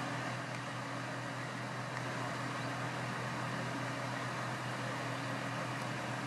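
DB Class 644 Talent diesel-electric multiple unit running into the platform: a steady low engine drone under an even hiss.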